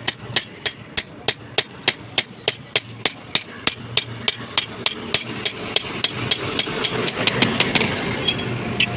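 A blacksmith's hand hammer strikes hot steel on an anvil in an even rhythm, about three blows a second, each a sharp metallic ring, while forging a fireplace-tong leg. A steady background rush grows louder from about halfway through.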